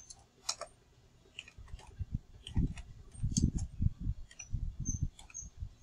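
Typing on a computer keyboard: a string of irregular key clicks with dull low thumps of the keys bottoming out, busiest from about one and a half seconds in.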